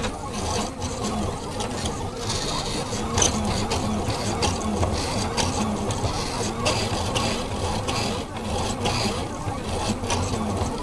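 Delta 3D food printer's stepper motors running as the arms move the extruder while printing, whining in short rising and falling sweeps over a steady low hum.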